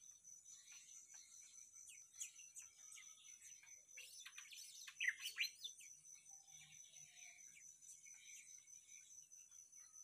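Cucak mini songbird chirping and twittering in short, scattered notes, with a louder burst of quick chirps about four to five and a half seconds in, over a steady high drone.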